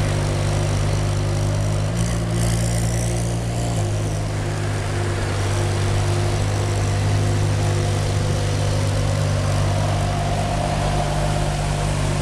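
Ferrari 599 GTO's V12 engine idling steadily, its idle lifting slightly for a couple of seconds near the start before settling back.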